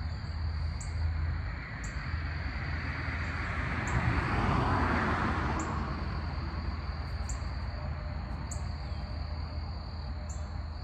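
Insects chirping: a steady high drone with short, sharp chirps above it about once a second. A broad swell of noise rises and fades about four to five seconds in.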